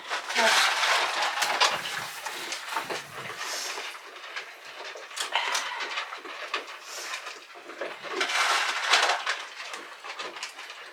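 Goats feeding from buckets: scattered knocks, clicks and rustling of muzzles and feed against the buckets, with a few louder bouts of clatter.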